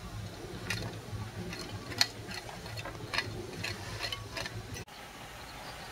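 Small hand trowel scraping and clicking through soil and small stones in an excavation trench: a run of irregular short scrapes and ticks, the loudest about two seconds in. They stop abruptly about five seconds in, leaving a steady low background noise.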